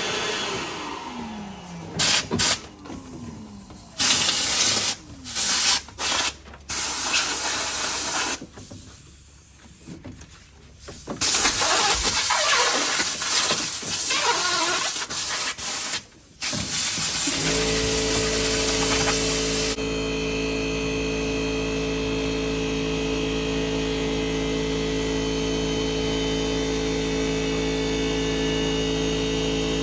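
Repeated short blasts of hissing air, like a compressed-air blow gun clearing debris, start and stop several times. About halfway through, a motor starts abruptly and hums steadily to the end.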